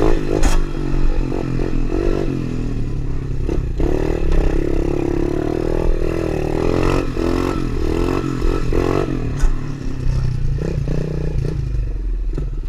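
Tao Tao DB24 110cc pit bike engine running while being ridden, the revs rising and falling with throttle changes, with a few sharp knocks and rattles along the way.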